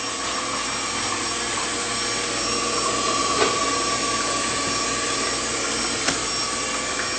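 Electric stand mixer running steadily as it beats eggs and oil, a motor hum with a steady whine on top. A few light knocks come through now and then.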